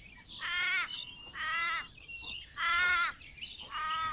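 Kangaroo calling: four short calls, each arching slightly up and down in pitch, about one a second, with faint high chirps in between.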